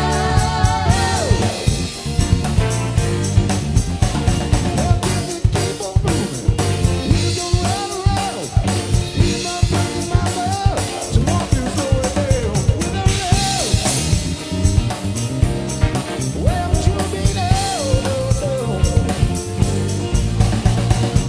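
Live rock band music: a drum kit keeps a steady, driving beat with snare and kick under electric piano and a wavering melodic lead line.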